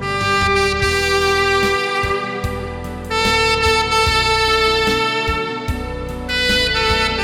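Tenor saxophone playing a slow melody in long held notes, the pitch changing about every three seconds, over a backing accompaniment.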